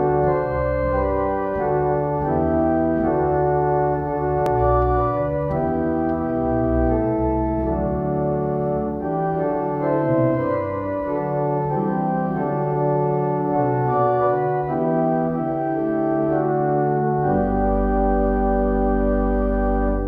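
Organ music: slow sustained chords over deep bass notes, ending on a long held chord.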